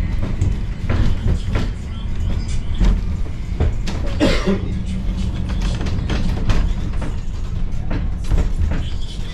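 Duquesne Incline funicular car climbing its track, a steady low rumble with irregular clicks and knocks as the wheels roll over the rails.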